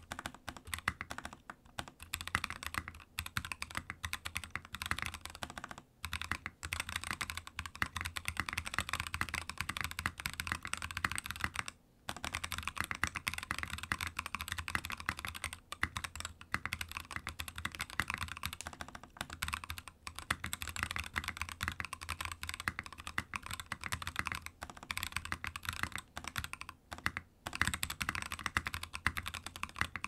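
Continuous fast typing on a mechanical keyboard with lubed Gazzew Boba U4T tactile switches, KAT-profile blank keycaps and lubed Cherry plate-mount stabilizers in an NK65 Entry Edition case, giving deep "thonky" keystrokes. The typing breaks off briefly about six and twelve seconds in.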